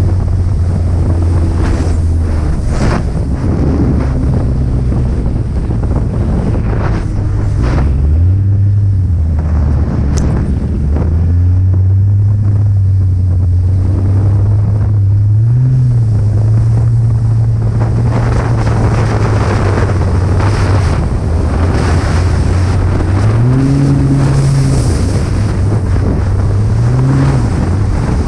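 Snowmobile engine running at a steady speed, its pitch rising briefly a few times as the throttle is opened, around 8, 15, 23 and 27 seconds in, with wind buffeting the microphone.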